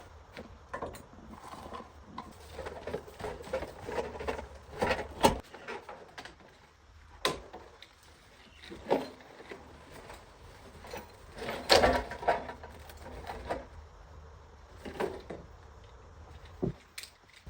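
Scattered knocks and clatter of hard objects being handled and set down, with a few sharper bangs.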